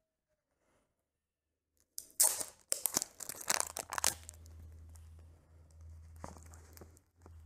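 Something torn and crinkled by hand: a dense run of loud tearing crackles starts about two seconds in and lasts about two seconds. A low steady hum with a few light clicks follows.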